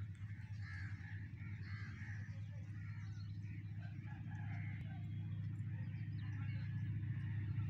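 Low, steady rumble of a distant diesel locomotive approaching, growing slowly louder. Birds call and chirp over it.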